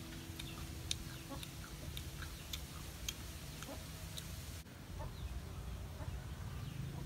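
Chickens clucking now and then, with scattered light clicks.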